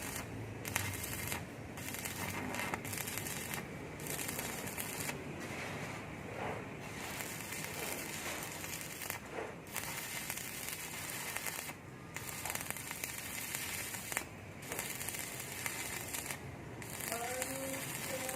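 Electric arc welding on steel: a steady crackling sizzle of the arc, broken by brief gaps every couple of seconds.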